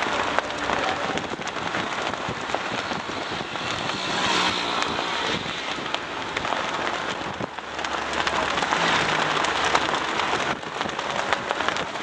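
Dense rustling and crackling noise of wind, flags and paper signs flapping close to the microphone, with faint road traffic under it.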